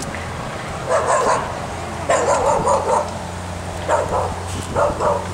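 A dog barking in short runs of several barks, over a steady low hum.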